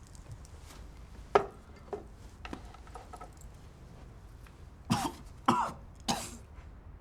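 A person coughing three times in quick succession after inhaling smoke, the hacking of an unpracticed smoker's lungs. A single sharp click comes about a second and a half in.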